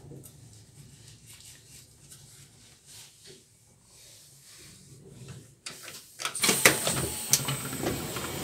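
Passenger train slowing into a station, heard from inside the coach: a faint low rumble with light clicks that dies away. About six seconds in, a sudden loud rushing noise with sharp knocks starts and takes over.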